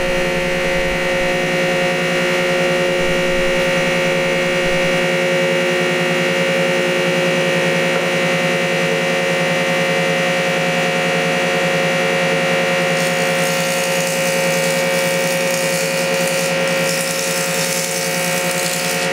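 Old belt-driven cast-iron jointer running at full speed, its electric motor and three-blade cutter head giving a loud, steady hum with a high whine. About two-thirds of the way through a hiss joins it as a thin spruce board is planed over the cutter head.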